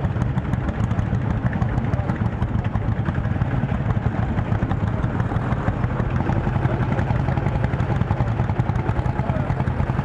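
Lanz Bulldog tractor's single-cylinder two-stroke engine running steadily under heavy load as it drags a sled of old tyres through mud.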